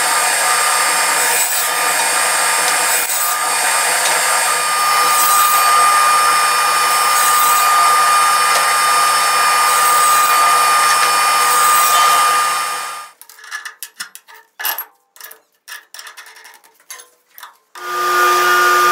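Table saw running and cutting wood, with a steady high whine that sets in about a quarter of the way through. About two-thirds through it breaks off abruptly, leaving a few seconds of scattered light knocks and clicks, and then the saw noise returns abruptly near the end.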